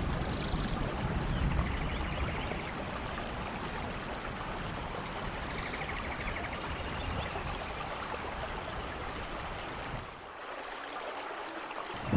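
Steady rain, an even hiss of falling water with a few faint high chirps above it. The low rumble thins out about ten seconds in.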